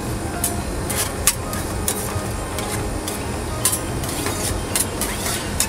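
Metal spatulas scraping and tapping on the steel cold plate of a rolled ice cream machine as they spread and chop the freezing cream base, in irregular sharp clicks and scrapes starting about half a second in. Under them runs the steady hum of the machine's refrigeration unit.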